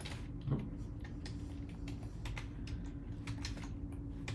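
Typing on a computer keyboard: an irregular run of keystroke clicks over a low steady hum.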